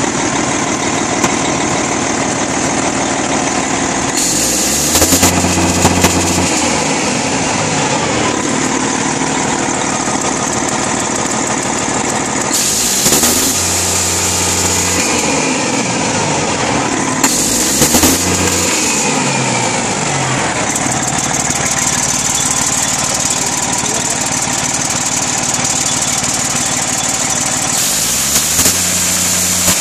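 Freshly overhauled Detroit Diesel Series 60 inline-six diesel engine running, revved up and let back down about four times.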